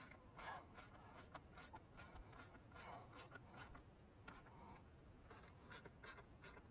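Faint clicks and scratchy rustling of gloved hands handling plastic covers and the terminal at the car battery's positive post and fuse block, a couple of small clicks a second.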